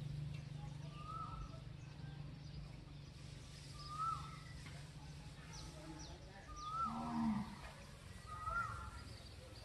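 Short animal calls repeat every two to three seconds, each rising then dropping. A longer, lower call comes about seven seconds in, over a steady low hum.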